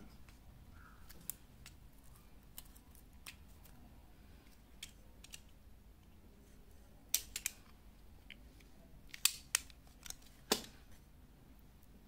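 A knife blade cutting through the foam insulation of a coaxial cable, with scattered sharp clicks and snips. The loudest come in a short cluster about seven seconds in and several more between nine and ten and a half seconds in.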